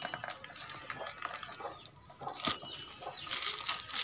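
Clear plastic sheeting crinkling and rustling as a black rubber strip is stretched and wound round it to tie it over a bucket's mouth, in a run of short clicks with one sharper snap about two and a half seconds in.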